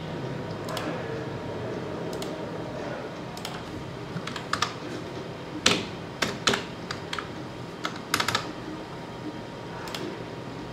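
Scattered keystrokes on a computer keyboard, about a dozen separate taps bunched mostly in the middle of the stretch, over a steady low hum.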